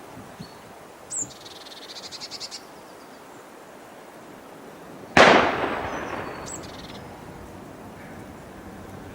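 A blue tit calling: a short high note, then a rapid churring trill. About five seconds in, a single very loud bang rings out and dies away over a couple of seconds, and the bird gives another short high note.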